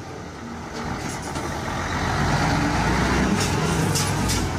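A Mercedes-Benz fire engine's diesel engine running as the truck drives past, getting louder over the first two seconds. No siren is sounding.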